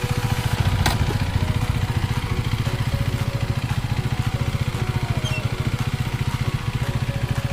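Motorcycle engine idling with a steady, fast putter.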